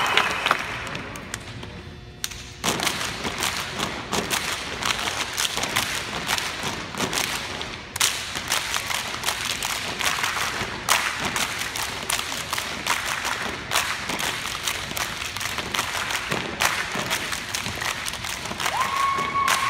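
A step team stamping and clapping in unison: a quick, steady rhythm of sharp hits that starts a little over two seconds in, after crowd cheering dies away. Cheering and whoops rise again near the end.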